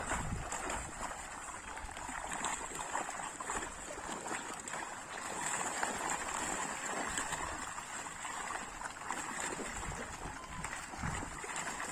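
Pond water sloshing and splashing as a seine net is hauled in to the bank, with fish thrashing inside the net.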